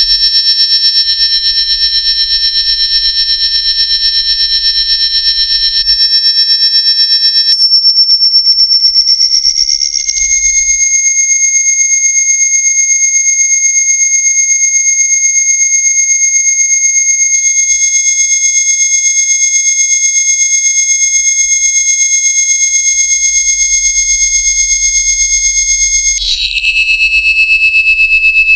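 Loud, shrill synthesized electronic tones, several high pitches held at once like an alarm. About 8 seconds in, one tone glides upward and the sound settles into a steady piercing chord. It shifts abruptly to a new set of pitches near the end.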